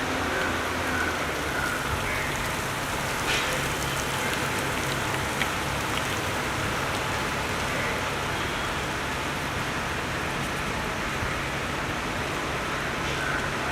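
Steady rain falling, with a low steady hum underneath and a couple of sharp clicks about three and five seconds in.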